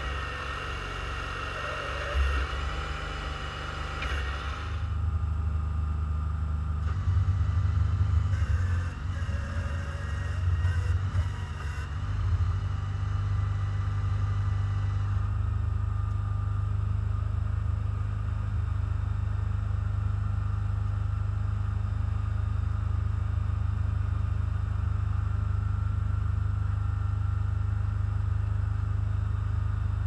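Garden tractor engine running steadily while powering a backhoe attachment, with a steady whine over the engine in the first few seconds. The engine note swells and fluctuates from about 7 to 12 seconds in, then settles back to an even drone.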